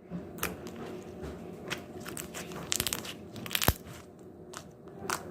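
Soft slime being squished and pressed in the hands, giving irregular crackly pops and clicks.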